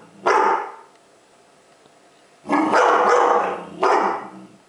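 Airedale terrier barking loudly: three barks, the middle one longer and drawn out.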